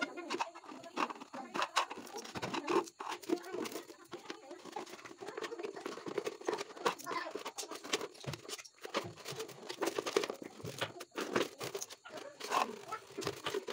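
Thin clear plastic drink bottle being handled: crinkling and crackling of the plastic, with irregular clicks and knocks as bottle pieces are moved about on a hard floor.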